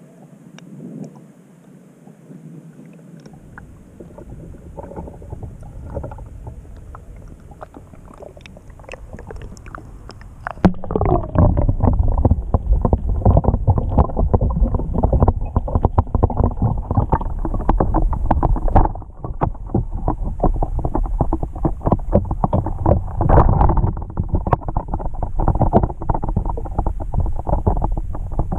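Water sloshing and gurgling around a camera as the cabin of a sinking Lego boat floods. About ten seconds in it turns suddenly much louder, a dense crackling over a low rumble, as the water closes over the camera.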